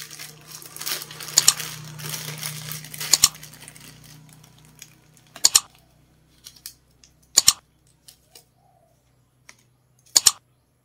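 Clear plastic wrapping crinkling as a wristwatch is pulled out of it. After the first few seconds the rustling dies down, leaving a few sharp, separate clicks roughly two seconds apart as the watch is handled.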